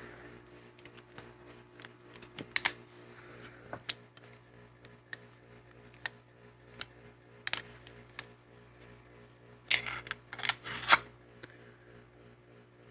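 Scattered metallic clicks and clacks from handling an all-steel PHP MV 9mm pistol, with a cluster of louder clacks about ten seconds in. A faint steady hum runs underneath.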